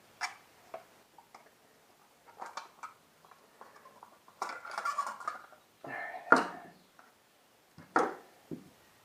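Small metal clicks, clinks and scrapes of a motorcycle speedometer's parts and hand tools being handled during disassembly. There is a burst of scraping around five seconds in and a sharp click about six seconds in, the loudest sound.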